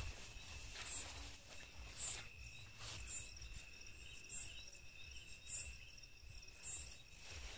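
Night insects calling: a steady high trill, with a separate higher chirp repeating about once a second. A few soft rustles sound under it.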